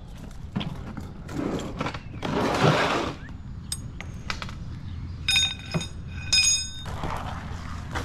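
Tools and gear being handled and moved in under the bottom of a garage door: scattered knocks and clicks, a scraping rush about two and a half seconds in, and two brief, high metallic squeals about a second apart near the end.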